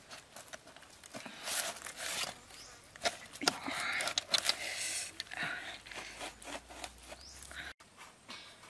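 A wooden skewer being forced through a raw, spice-rubbed pig head: wet squelching and scraping of meat against wood, with small clicks, coming in irregular bursts.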